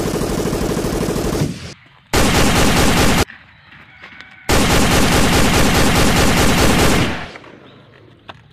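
Machine-gun sound effect: three bursts of rapid automatic fire, the last and longest lasting over two seconds and fading out near the end.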